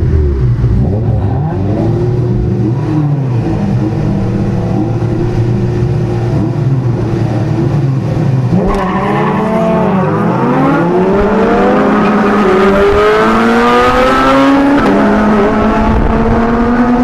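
Car engine heard from inside the cabin, running steadily at low revs for the first several seconds, then accelerating hard from about nine seconds in with a rising pitch, an upshift about fifteen seconds in, and the revs climbing again.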